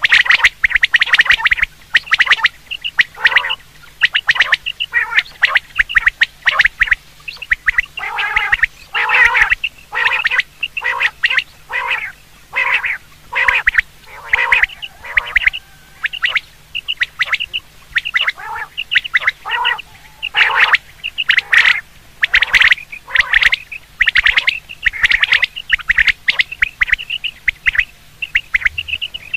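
Common quail calling over and over: a dense, unbroken run of short, high calls, several a second, some overlapping.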